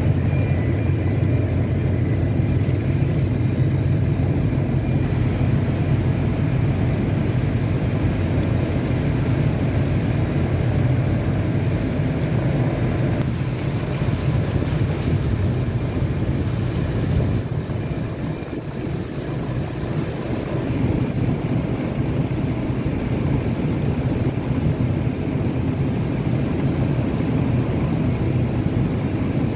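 Steady low drone of a boat's engine, easing slightly for a moment about two-thirds of the way through.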